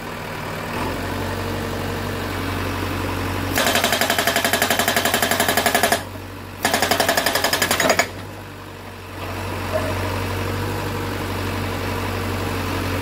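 Korean SH43 hydraulic rock breaker on a JCB backhoe hammering a rock: rapid blows, about eight a second, in two runs of a couple of seconds each with a short break between. Under it the backhoe's engine runs steadily, dropping briefly after the hammering before picking up again.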